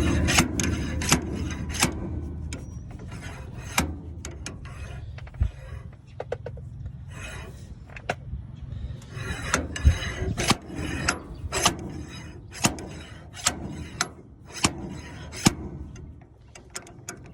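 Slide hammer on a bearing puller being worked over and over: the weight scrapes along its shaft and knocks sharply against the stop many times at uneven intervals, trying to pull a rusted, seized inner bearing race off a baler's wheel spindle.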